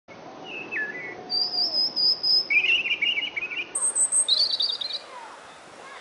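European robin singing: about five short phrases of thin whistles and trills, each at a different pitch, ending about five seconds in.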